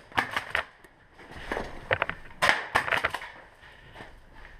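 Footsteps and rustling of clothing and gear, with several sharp clicks and knocks near the start.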